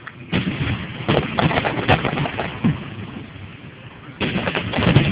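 Fireworks going off: sudden booms followed by dense crackling, with a fresh loud volley starting about four seconds in.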